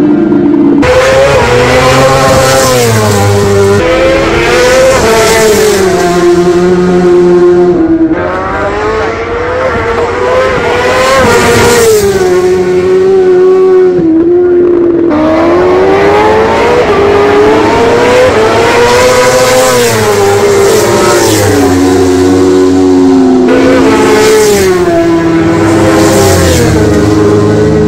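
Road-racing motorcycles at full throttle, engine notes climbing and dropping again and again as the riders change gear. Near the end two bikes pass close by at speed.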